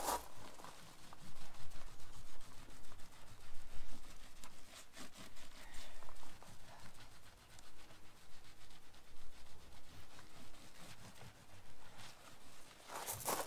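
A sponge scrubbing the ribbed side panel of a camper van with cleaning foam, in short irregular rubbing strokes, scouring off black streaks. A brief louder burst comes near the end.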